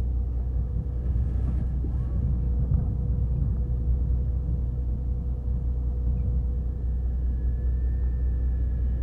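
Fishing boat's engine running steadily: a low rumble with a constant hum over it.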